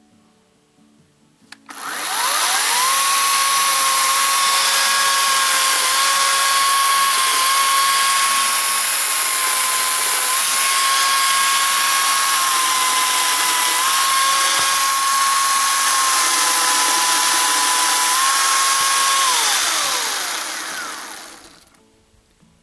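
Ryobi 40-volt cordless chainsaw's electric motor spinning up about two seconds in, running at full speed with a steady high whine that dips slightly in pitch a few times, then winding down and stopping near the end.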